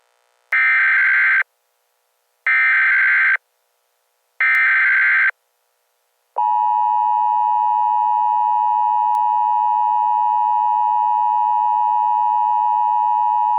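Emergency Alert System header: three short buzzy bursts of SAME digital data, each just under a second long and about two seconds apart. About six seconds in, the steady two-tone EAS attention signal starts and holds.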